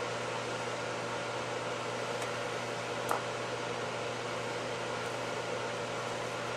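Steady background hum and hiss. One light click about three seconds in and a fainter one a second earlier come from a fuel injector being handled on the rail.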